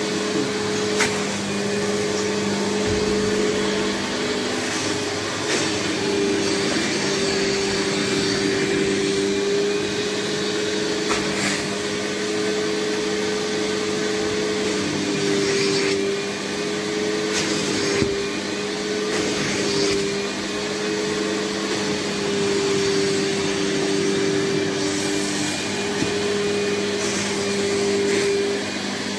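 Fakir Deluxe Öko Line 9800S carpet-washing machine running steadily, its green upholstery nozzle drawn over the sofa fabric to extract the wash water. The motor tone wavers slightly as the nozzle moves.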